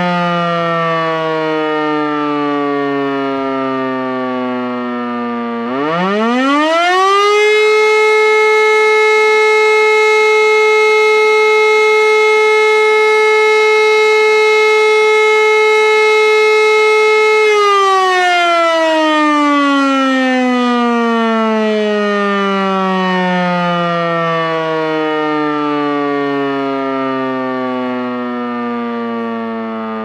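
E57 electromechanical siren sounding the German fire-alarm signal. Its pitch first falls as the rotor winds down. About six seconds in it quickly winds back up to a steady full-pitch tone, holds it for about ten seconds, then coasts down with slowly falling pitch.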